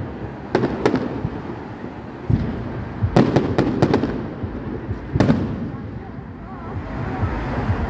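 Aerial fireworks bursting: two sharp bangs about half a second in, a deeper thud a little after two seconds, a quick run of four cracks between three and four seconds, and another bang around five seconds, each dying away in a rumbling echo.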